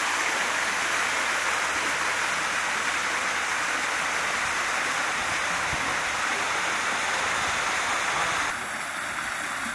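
Steady rushing of running water, dropping a little in level near the end.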